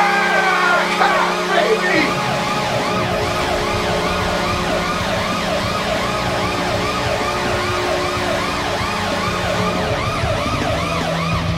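Goal-celebration siren sound effect, wailing up and down about twice a second over a steady low hum.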